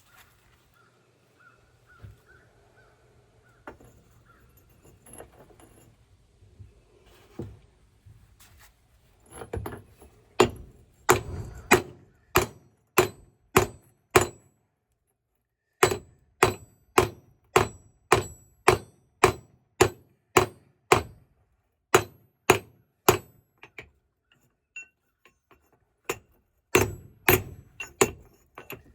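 Hammer blows ringing on a steel gate-latch bracket being pounded flat, about two strikes a second in runs with short pauses between. The first several seconds hold only faint clatter of handling the metal.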